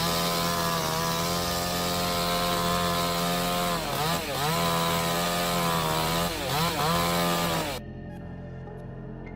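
Chainsaw engine running at high revs, its pitch dipping briefly twice and coming back up. Near the end the sound turns abruptly duller and quieter.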